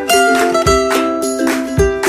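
Background music: a bright tune of held notes over a steady beat.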